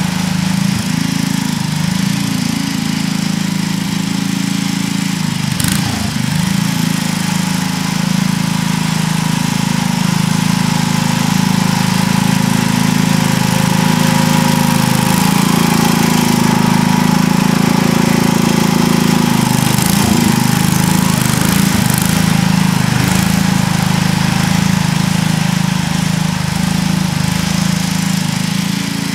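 Garden tractor engine running steadily under load as it pulls a plow through garden soil, with a few brief dips in engine speed and sharp knocks.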